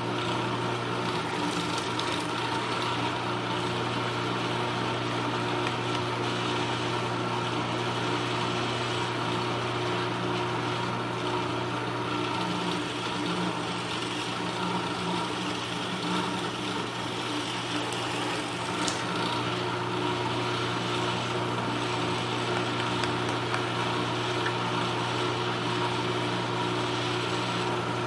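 Drill press running with a steady motor hum as its bit bores into a wooden block.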